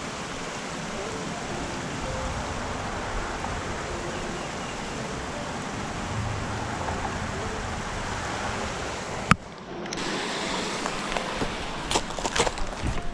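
Steady rushing outdoor noise. About nine seconds in a single sharp click cuts it off, and scattered clicks and knocks follow near the end.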